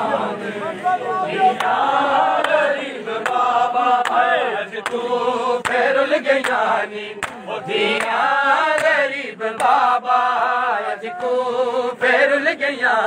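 Men chanting a Punjabi noha, a mourning lament, with sharp slaps of palms on bare chests (matam) roughly once a second.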